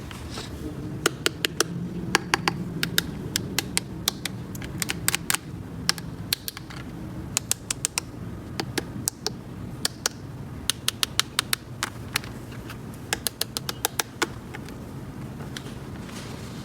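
Small plastic toy pieces clicking and tapping as they are handled, in quick irregular clusters of sharp clicks over a steady low hum.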